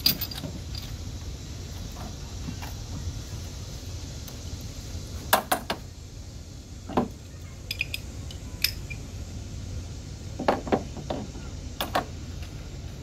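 Scattered metallic clicks and clinks of a socket wrench and extension, singly and in pairs, as a stubborn, crud-seized spark plug is slowly worked loose. A steady low hum runs underneath.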